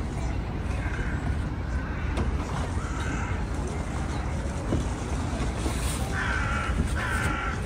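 A crow cawing a few times, harsh short calls with the two loudest near the end, over a steady low rumble.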